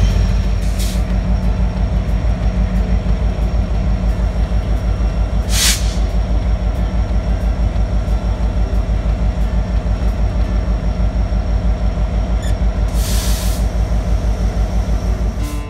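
BNSF diesel freight locomotives rolling slowly past, their engines running with a steady, loud low rumble and a regular pulsing beat. Three short hisses of air come about a second in, midway and near the end.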